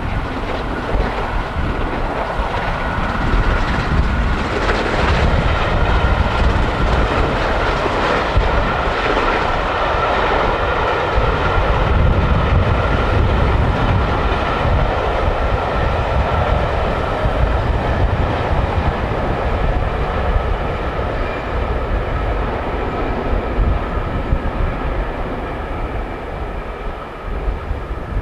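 The LMS Princess Coronation class Pacific 6233 Duchess of Sutherland, a steam locomotive, running along the main line with its train, a steady train noise with a heavy low rumble from wind on the microphone.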